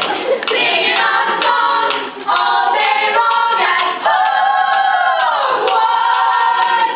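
A group of voices singing together without instruments, holding long notes. One long note in the second half slides down near its end.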